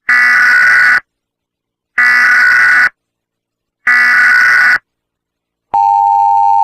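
Emergency Alert System SAME header: three bursts of coded data of about a second each, a second apart, sent three times over as the header always is. Near the end the steady EAS attention tone begins, signalling that an alert message follows.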